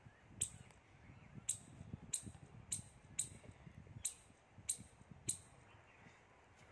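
A squirrel giving a series of sharp, high-pitched alarm chirps, eight short calls spaced about half a second to a second apart, at a dog below it.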